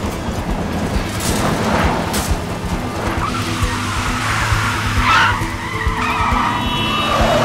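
Car engines running hard with tyres squealing and skidding, in a film car-chase soundtrack with music underneath. The squeals come mostly in the second half.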